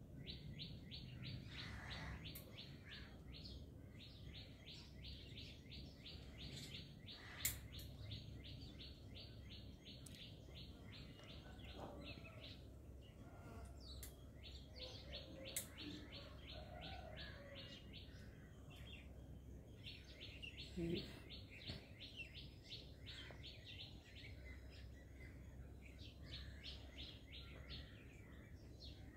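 Faint, fast high-pitched chirping, evenly spaced at about five chirps a second, in runs of several seconds with short breaks, over a low steady rumble and a few soft clicks.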